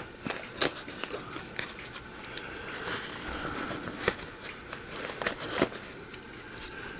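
Handling noise of a soft nylon pistol case being opened and a compact pistol lifted out of it: fabric rustling with scattered sharp clicks and taps.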